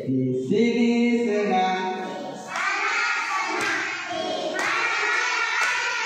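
Group singing: a man's voice singing over a microphone and loudspeaker, and from about halfway a group of young children singing together in higher, held notes.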